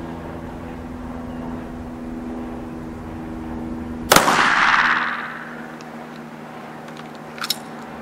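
A single shot from a Hungarian WWII Frommer 37M self-loading pistol about four seconds in, a sharp crack whose echo dies away over about a second. A steady drone runs underneath before the shot, and two faint clicks come near the end.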